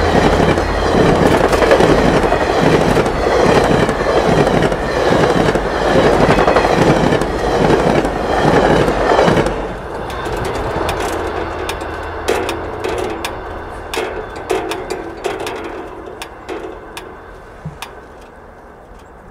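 VIA Rail passenger train's stainless steel cars rushing past at speed, wheels clattering rhythmically on the track. About ten seconds in the last car clears and the sound drops suddenly, leaving scattered sharp wheel clicks that fade as the train recedes.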